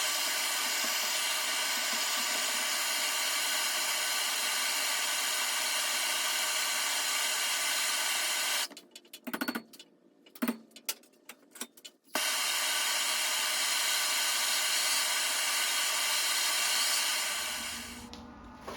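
Gas torch flame hissing steadily while heating round steel bar for bending. The hiss stops for a few seconds midway, when a few knocks and clicks of the bar being handled are heard, then starts again and fades out near the end.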